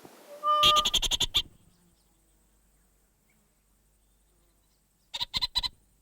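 A bird calling: a short whistled note, then a fast run of harsh, rasping pulsed notes. After a silence, another short burst of about five such notes comes near the end.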